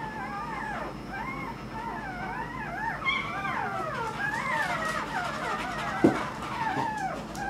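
A litter of one-week-old puppies whimpering and squeaking together: many thin, wavering cries overlap without a break. There is a short low thump about six seconds in.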